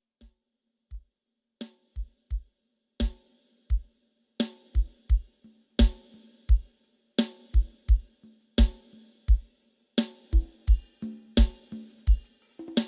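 Drum-heavy sound-check track played through a sound system: deep kick drum hits with hi-hat and cymbals, starting with sparse single kicks and building into a fuller, faster beat after about four seconds.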